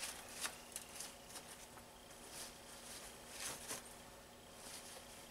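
Paper shop towel rubbed over a freshly tapped steel part to wipe off tapping oil: faint, soft swishing strokes with a few light brushing ticks.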